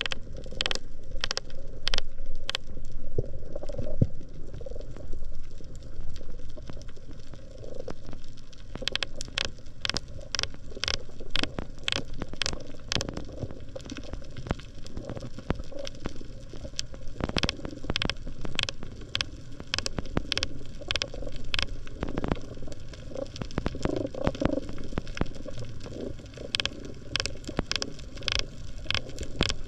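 Underwater sound through a camera's waterproof housing over a coral reef: a steady, muffled low rumble of water with irregular sharp clicks, sometimes several in quick succession.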